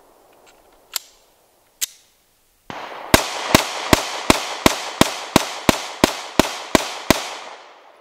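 Sig Sauer P365XL 9mm pistol fired outdoors: two single sharp shots about a second apart, then a quick string of about twelve shots at roughly three a second.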